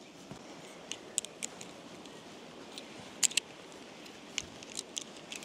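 Tent pole sections clicking and clacking together as the poles are pulled apart and folded. Irregular light clicks, the loudest pair about three seconds in, over a faint steady outdoor background.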